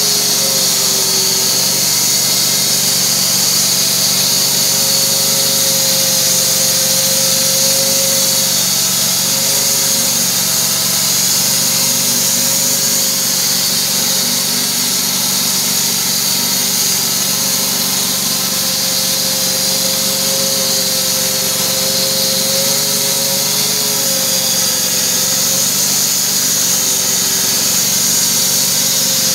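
Wood-Mizer LT28 portable band sawmill cutting, the band blade running through a squared log as the saw head is fed along it. A steady engine drone under a high, constant hiss from the blade in the wood, the engine note wavering slightly now and then as the load changes.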